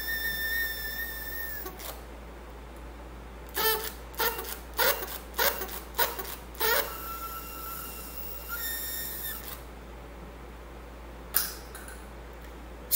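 A paper party blower blown several times: a long steady toot at the start, a run of short toots a few seconds in, then another long toot in the middle.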